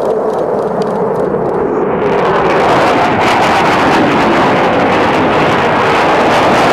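An F/A-18 Hornet's twin General Electric F404 turbofan engines, a loud jet roar during a display pass. The roar becomes harsher and louder about two seconds in.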